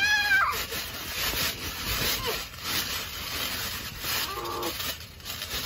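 Scuffling and rubbing of two boys wrestling on a trampoline, their feet shuffling and scraping on the mat, opening with a short shout and with brief voice sounds between.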